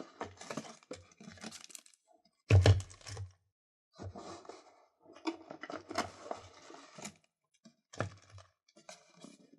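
GoPro Hero 4 Silver packaging being handled up close: irregular rustling, tearing and scratching, with one loud knock about two and a half seconds in and a few short taps near the end.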